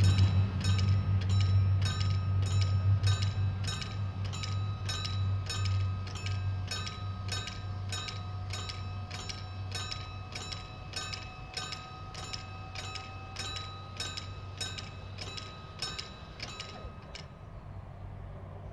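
Level-crossing bell ringing steadily at about two strokes a second, stopping near the end, over the low diesel engine of an ATR 220 railcar that fades as the train pulls away.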